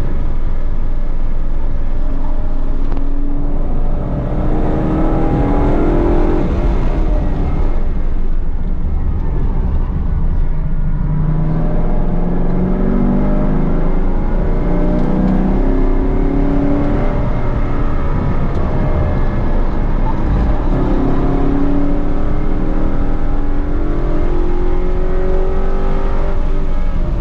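Holden Commodore VE SS ute's 6.0-litre V8 being driven hard on a race track. The engine pitch climbs and drops back several times as it revs out and shifts through the gears.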